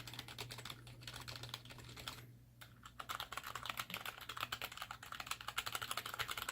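Fast typing on a Corsair K55 membrane keyboard: a dense patter of key presses, with a short pause a little over two seconds in, then steady continuous typing.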